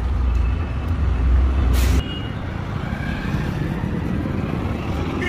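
Road traffic: a heavy vehicle engine's low rumble, with a short burst of hiss near two seconds, after which the rumble drops away and a lighter traffic noise goes on.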